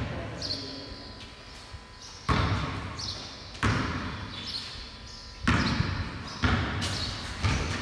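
Basketball bouncing on a concrete floor in a large, echoing garage, about six uneven bounces, each a sharp thud with a long fading tail.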